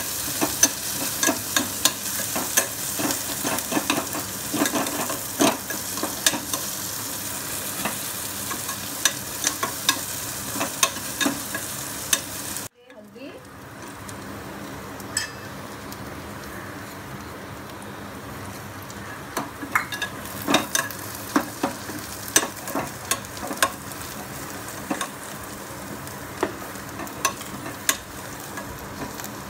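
Sliced onions frying in oil and ghee in an aluminium pressure cooker, with a steady sizzle. A metal spatula stirs and scrapes against the pot, making frequent sharp clicks and taps. The sound cuts out for a moment about halfway, and after that the sizzle is quieter.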